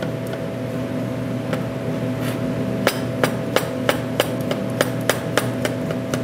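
Chef's knife slicing button mushrooms on a cutting board: a few soft knife taps on the board at first, then sharp, even chops about three a second from about three seconds in. A steady background hum runs underneath.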